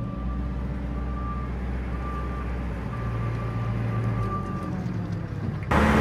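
A 6-ton JCB's diesel engine running, heard from inside the cab, with its reversing alarm beeping about once a second. Near the end the engine suddenly revs up hard.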